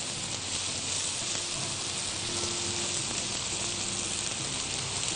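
Sliced onions and garlic sizzling steadily in hot oil in a frying pan as they are stirred with a silicone spatula.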